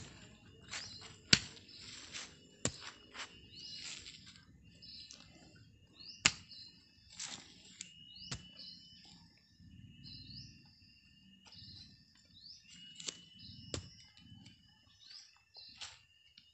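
A hoe chopping into garden soil, digging up clods: a handful of sharp strikes spread irregularly, with the scrape and crumble of dirt between them. Birds chirp throughout.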